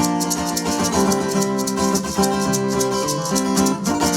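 Instrumental break in a live band's song: held guitar chords over a fast, even shaker beat, with no singing.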